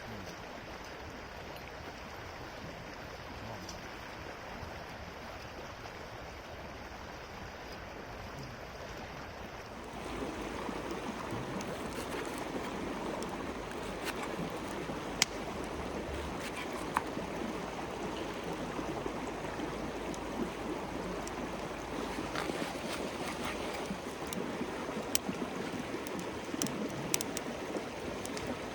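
Wood campfire burning, with sharp crackles and pops scattered through the second half over a steady rushing hiss that gets louder about ten seconds in.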